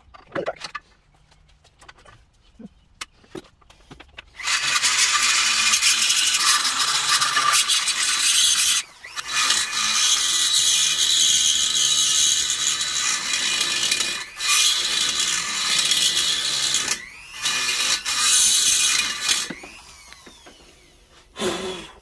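Handheld die grinder running at high speed against the aluminium crankcase of a Yamaha GP1300R, cleaning out around a V-ground crack and stripping the paint. After a few seconds of handling clicks it grinds in four spells with short pauses between them, then winds down near the end.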